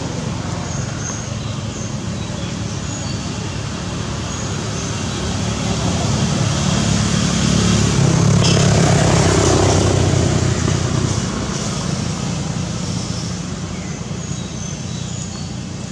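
A motor vehicle passing: a steady low road rumble that swells over several seconds, peaks about nine seconds in, then fades back.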